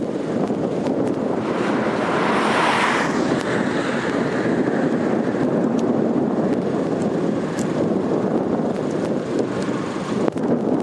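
Strong wind buffeting the microphone: a steady rushing noise, with a louder gust about two seconds in.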